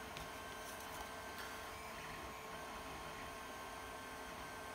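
Quiet steady room tone: a faint hiss with a thin electrical hum, and one faint tick about a second in.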